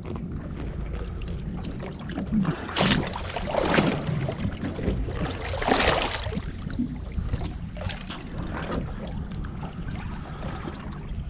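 Water sloshing against a boat's hull with wind on the microphone, and a few loud splashes at the surface about three to six seconds in as a hooked parrotfish is brought up beside the boat.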